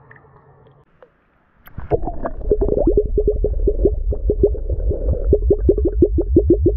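Round glass flask filling underwater, heard from below the surface. Fast glugging as air escapes through its neck in pulses, about six a second, starting about two seconds in and coming closer together toward the end.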